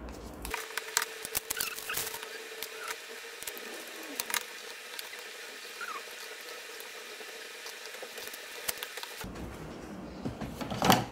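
Small cardboard earbud box being opened by hand: a run of light scratching, tapping and clicking from cardboard and plastic packaging, with a louder handling rustle about ten and a half seconds in. A faint steady hum sits under the first few seconds.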